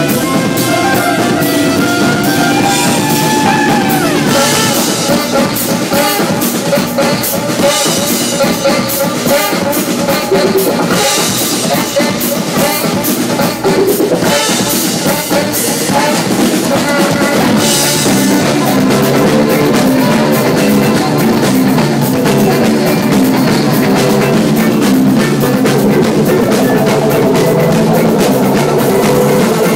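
Live rock band playing loud, with a drum kit, electric guitar and saxophone.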